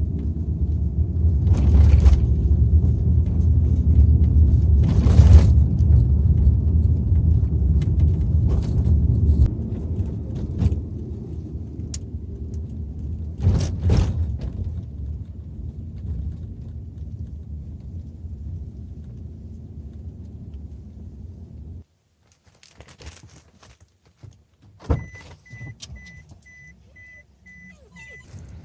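A car running with a steady low hum and a few clunks. The hum is loud for the first ten seconds or so, then fades. It cuts off abruptly, leaving near quiet with a few clicks and a short run of evenly spaced electronic beeps near the end.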